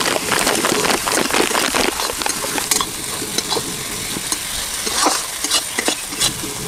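Chopped tomatoes, green chillies and ginger sizzling in mustard oil in a steel kadhai while a steel spatula stirs and scrapes the pan. The scraping strokes come thick at first, then more scattered.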